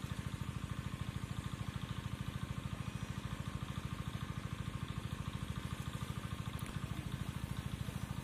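A small engine running steadily at idle with a fast, even pulse that does not change.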